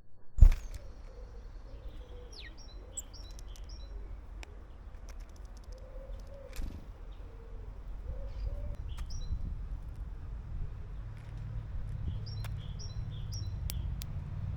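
Small garden birds chirping in short, high, scattered calls, bunched in two clusters, over a steady low outdoor rumble that builds later on. One sharp, loud knock about half a second in.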